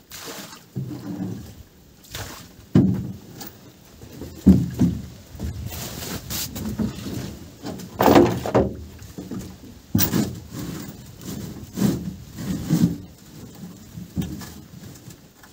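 Irregular thumps and knocks, one every second or two, as a person steps about and shifts gear inside a small moored boat.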